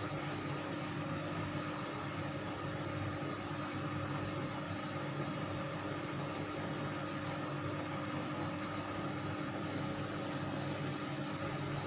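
Vestel CM8710 washing machine running with a steady motor hum and a few constant tones over an even whirr, with no change in pace throughout.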